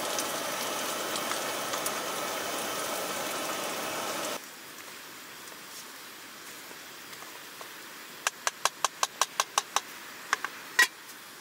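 Meatballs sizzling in a frying pan, a steady hiss that cuts off abruptly about four seconds in. Then a quieter background, with a quick run of sharp clicks, about six a second for two seconds, and one louder click near the end.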